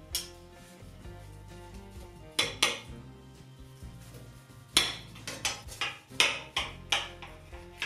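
Table knife and fork clinking and scraping against plates while a baked pie is cut and a slice lifted: two sharp clinks about two and a half seconds in, then a quick run of clinks from about five seconds in.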